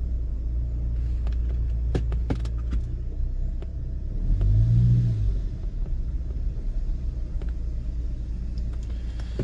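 Low, steady rumble of an SUV driving slowly, engine and road noise heard from inside the cabin, with a few light clicks about two seconds in and a short low hum that swells and fades near the middle.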